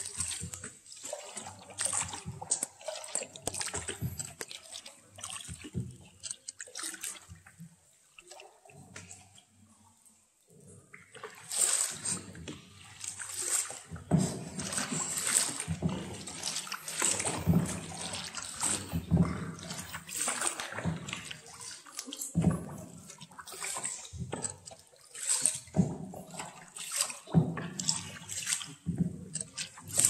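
River water splashing and sloshing around a paddled tour boat, in uneven bursts every second or two, with a quieter stretch about eight to eleven seconds in.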